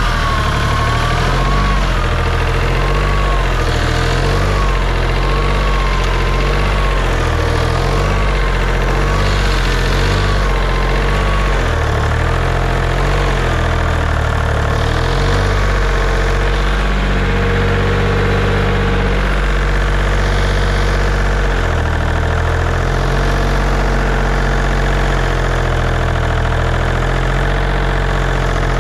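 Diesel engine of a construction machine (skid steer or paver) idling steadily just after a cold-morning start. For about the first ten seconds a higher whine wavers up and down over it.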